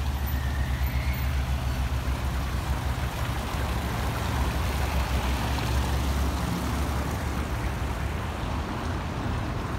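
Outdoor street ambience: a steady low rumble with an even hiss over it.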